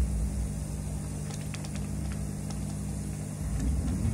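A steady low hum with a few faint clicks.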